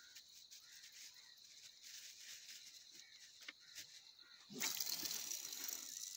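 Faint, steady high-pitched drone of insects, with a few short chirps. About four and a half seconds in, the sound turns abruptly louder and hissier.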